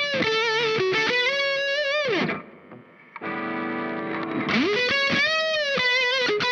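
Electric guitar, a Larrivée RS2, through a Dazatronyx RAD distortion pedal (a RAT-style circuit) set for soloing, playing a smooth high-gain lead: sustained notes with bends and wide vibrato, a brief break about two seconds in, a held low chord, then another bent, vibrato phrase.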